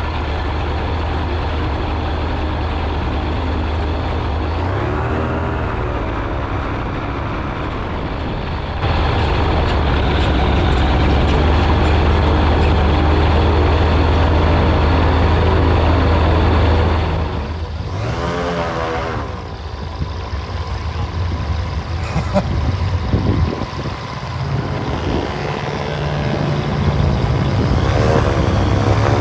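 Rotax 912 engine and propeller of a weight-shift microlight trike running at low taxi power, heard close up from the wing, getting louder about nine seconds in. From a little past halfway it is heard from the ground as the trike taxis up, the engine note rising and falling.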